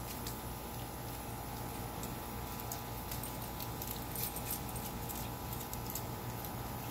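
Faint light clicks and jingling from Cane Corso dogs moving and scuffling on a stone patio, heaviest between about three and five seconds in, over a steady background hum.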